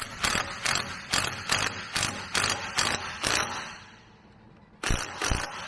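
Cordless Ridgid impact gun with a 27 mm socket hammering the pinion flange nut on an S2000 differential in short bursts, about three a second, then two more near the end. The nut is being snugged down without the seal to check pinion bearing preload on a solid spacer.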